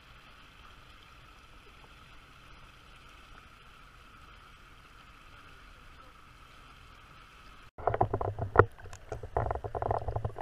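Faint steady hiss of a GoPro in its waterproof housing at the water's surface. After a sudden cut about three-quarters of the way in, it gives way to loud, irregular, muffled underwater sloshing and knocking as a pig paddles against the submerged camera.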